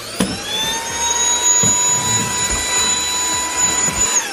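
Vacuum cleaner motor switched on, its whine rising to a steady pitch within about a second and running steadily, then switched off near the end, the whine falling away.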